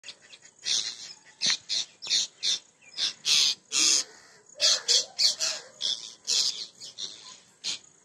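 Parrots giving harsh, short screeching calls over and over, about two a second: alarm calls at a snake climbing to raid their nest.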